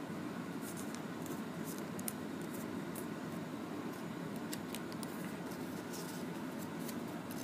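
Origami paper crinkling and rustling as it is handled and folded, in short crisp crackles scattered over a steady background hiss.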